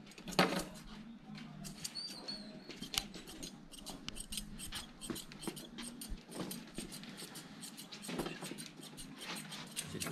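Grooming scissors snipping through a double-coated dog's fur, cutting against the grain level with the undercoat: a long run of quick snips, coming several a second in the second half.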